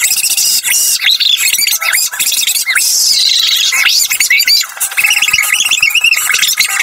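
Voice audio played back at extreme speed, turned into a dense, shrill run of chirps and squeals with no low end.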